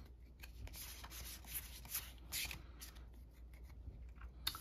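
Trading cards rubbing and sliding against each other as a small stack from a booster pack is handled and turned over by hand: soft, scattered papery scrapes.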